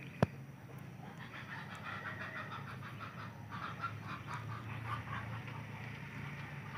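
A single sharp click just after the start, then a run of rapid, chattering animal calls made of many short notes over a low steady hum.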